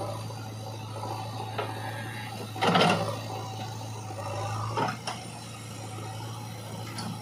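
JCB 3DX backhoe loader's diesel engine running steadily, with a loud crash of soil and clods tipping from the backhoe bucket into a tractor trolley a little under three seconds in. A couple of sharper knocks follow about five seconds in as the bucket swings clear.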